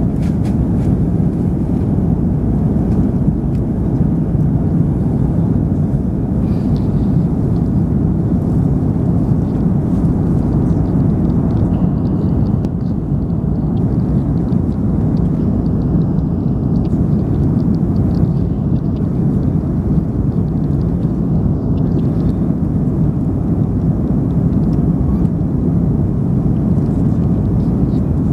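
Steady, even cabin noise of a jet airliner in flight: its turbofan engines and the rushing air, heard from inside the cabin as a low rumble.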